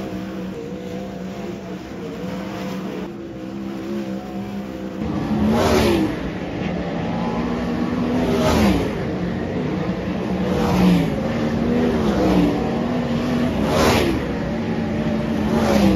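410 sprint cars on hot laps, their methanol V8 engines running hard at high revs. From about five seconds in, cars pass close by one after another, about six times, each pass a surge in loudness with the pitch dropping as the car goes by.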